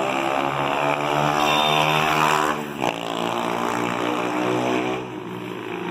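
Honda CG 160 Fan motorcycle's single-cylinder four-stroke engine running on a road test, after a valve adjustment meant to cure its misfiring under hard acceleration. The engine note breaks briefly about two and a half seconds in, then carries on more steadily and drops a little near the end.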